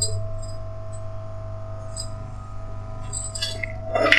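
Steel kitchen utensils clinking lightly a few times, with a louder clatter near the end, over a steady hum.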